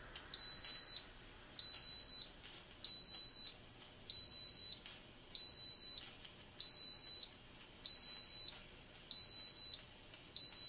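Instant Pot Duo Nova pressure cooker beeping to signal that its pressure-cook cycle has finished. A single high steady tone about half a second long repeats evenly, roughly every second and a quarter, nine times.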